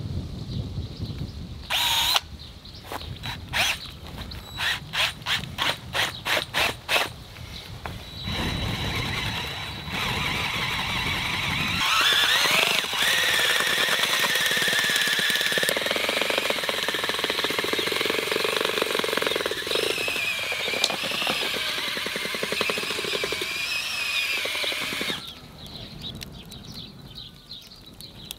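Cordless drill with a whisk-type mixing attachment churning a thick mud in a steel bowl: first a run of short sharp sounds about three a second, then the motor whines steadily, rising in pitch about twelve seconds in, and stops a few seconds before the end.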